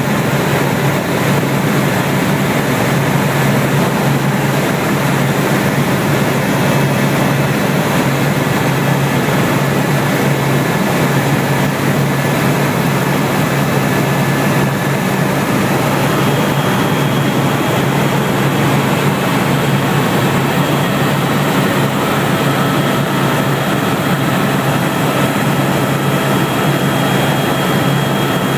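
Helicopter in flight, heard from inside the cabin: a loud, steady drone of engine and rotor, with faint thin whining tones above it that shift in pitch about halfway through.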